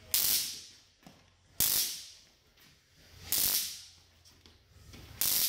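Taser stun gun sparking in four short crackling bursts, roughly one every one and a half to two seconds, each cutting in sharply and then tailing off.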